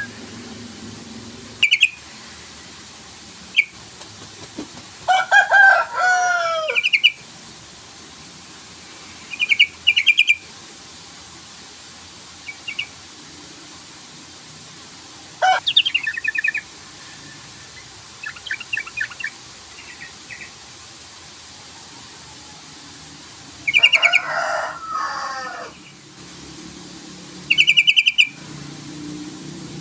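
Sooty-headed bulbul calling: short chattering calls and a couple of longer bubbly phrases with falling notes, in separate bursts a few seconds apart.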